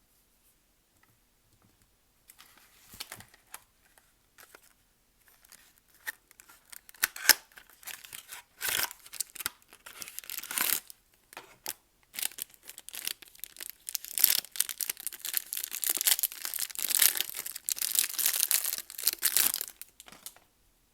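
Soap packaging being torn open and crinkled: scattered rustles at first, then dense tearing and crackling through most of the second half, stopping shortly before the end.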